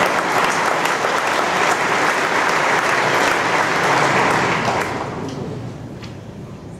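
Audience applauding, then dying away about five seconds in.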